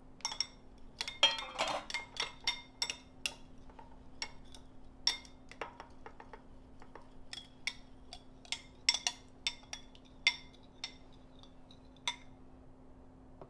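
Metal spoon clinking against a glass bowl: many quick, uneven taps while a sauce of tomato paste, butter and hot water is stirred. The taps thin out and stop about two thirds of the way through.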